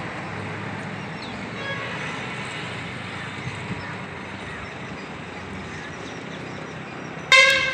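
Steady street and traffic noise, with a vehicle horn honking once, short and loud, near the end.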